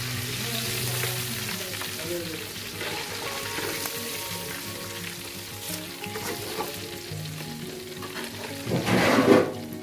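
Pieces of masala-coated threadfin bream (kilimeen) deep-frying in a pan of hot oil, sizzling steadily while a flat metal skimmer stirs and lifts them. A short, louder burst of noise comes about nine seconds in.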